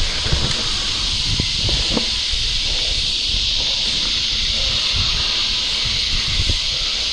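YT Capra mountain bike descending dirt singletrack: a steady high hiss with a low rumble from the tyres on the trail, and a few knocks as the bike rattles over bumps, most of them in the first two seconds.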